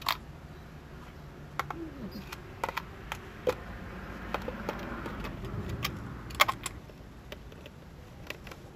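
Scattered clicks and clacks of a plastic carburetor air-intake cover being fitted onto an outboard motor's carburetors, with a screwdriver knocking against it; the loudest clack comes about six and a half seconds in.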